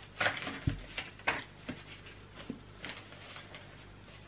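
Packaging and fabric rustling as a new pillowcase is worked out of its pack: a run of short crinkles and ticks, busiest in the first second and a half, then sparser, with one dull thump under a second in.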